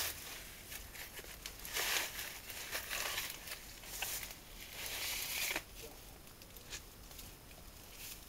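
Irregular rustling and scraping in a few bursts, the longest about four and a half to five and a half seconds in, with a couple of sharp clicks.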